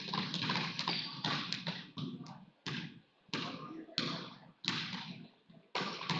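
Basketball being dribbled on a hardwood gym floor: a run of single bounces about every two-thirds of a second, each with an echo in the hall. A low murmur from the stands sits under the first couple of seconds.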